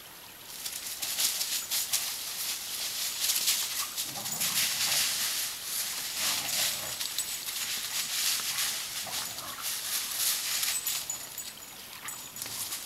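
Dry fallen leaves crunching and rustling under steps and running paws, a dense crackle that starts about half a second in and goes on throughout.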